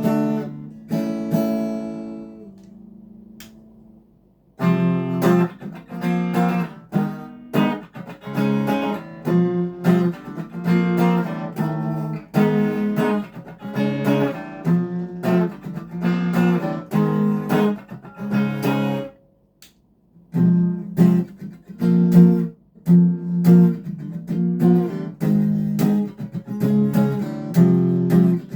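Legacy LP 300 Les Paul-style electric guitar played on a clean tone: a chord left ringing and fading away over the first few seconds, then steady rhythmic strumming of chords, stopping for about a second two-thirds of the way through before starting again.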